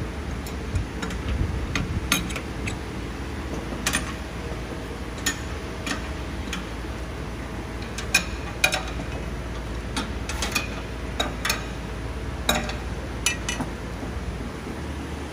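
Irregular sharp clicks and light taps of small hard objects being handled on the metal parts of a stone bead milling machine, over a steady low hum.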